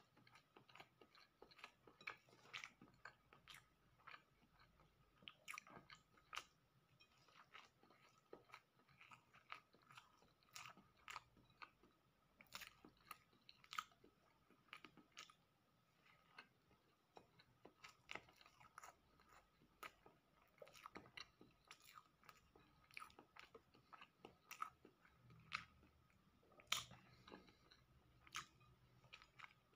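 Close-miked chewing and biting of a flaky cheese roll pastry: irregular soft mouth clicks, smacks and light crunches, several a second, with an occasional louder bite.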